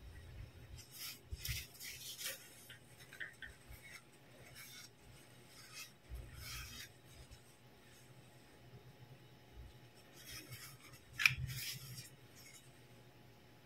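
Hands handling hard plastic toy doctor-set pieces: short bouts of scraping, rubbing and light clicking of plastic, with some rustling of paper. One sharp click a little after eleven seconds is the loudest sound.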